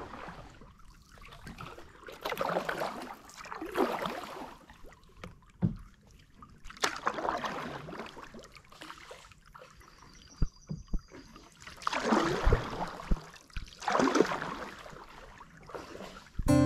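Canoe paddle strokes in calm water: a splash and swish with each stroke every few seconds, with a few short sharp knocks between them.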